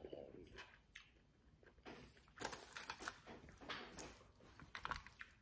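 Faint, irregular eating noises: chewing a chicken wing, with short crackles of paper and foil food wrappings being handled.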